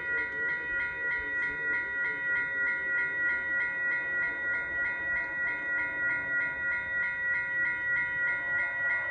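Railway level-crossing bell ringing steadily, about three to four strikes a second, warning of an approaching train.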